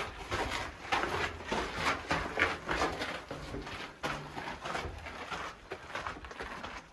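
Hiker's footsteps on the trail, about two steps a second, each a short scuffing crunch.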